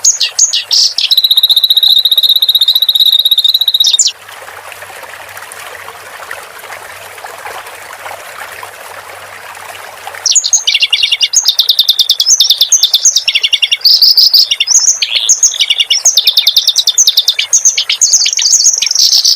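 Kerak basi (reed warbler) singing a loud, rapid, chattering song, with a steady high buzzing note held for about three seconds early on. The song breaks off at about four seconds, leaving only a softer, even rush of trickling water for about six seconds, then resumes as dense, fast chatter.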